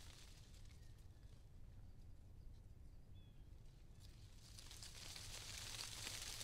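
Near silence: faint outdoor ambience with a steady low wind rumble and a high rustling hiss that swells near the end, with a faint short chirp about three seconds in.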